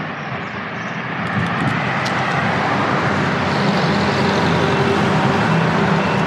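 Street traffic: a motor vehicle approaching, its noise growing steadily louder, with a steady low engine hum coming in about halfway through.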